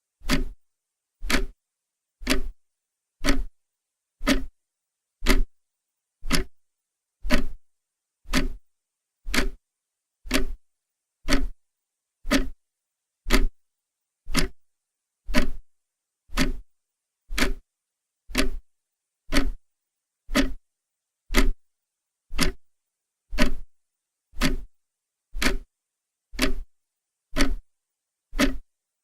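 Clock ticking steadily, one sharp tick about every second with silence between ticks.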